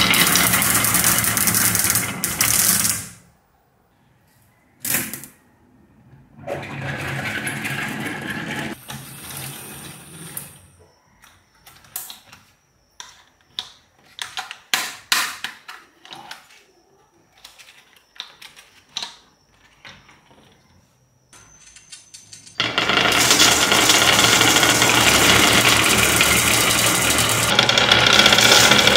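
Many glass marbles rolling down a HABA wooden wave-shaped slope in a dense, loud clatter, the first run landing in a small wire toy shopping cart. The sound stops about 3 s in. In the quieter middle stretch come scattered clicks and knocks from a plastic toy dump truck being handled. About 23 s in, a second dense run of marbles rattles down the wooden wavy track.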